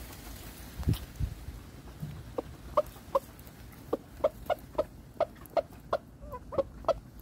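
A chicken clucking: a run of short, repeated clucks that starts a couple of seconds in and comes faster, about two to three a second, in the second half. Two dull low thumps about a second in.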